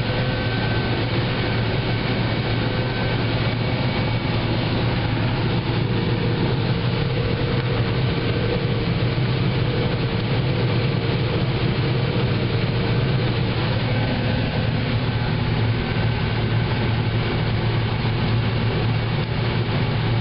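John Deere combine running steadily while harvesting corn: a constant low engine drone with a steady hum from the machinery.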